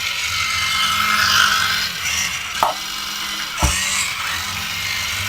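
Small electric motor and plastic gearing of a toy RC vehicle whirring steadily, with two short clicks partway through.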